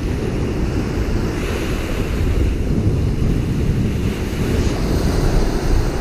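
Wind rumbling on the microphone over the steady wash of small waves breaking on a sandy beach.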